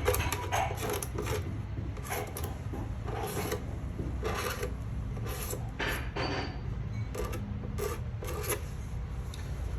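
Short, irregular scraping or rubbing strokes, about one or two a second with brief pauses, over a steady low hum.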